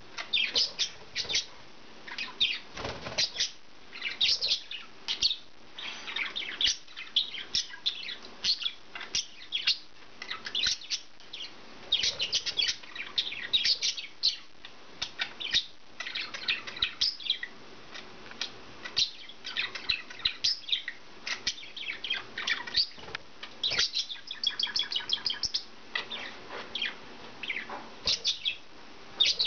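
Budgerigars chirping and chattering in quick, high, short calls that come in clusters with brief gaps.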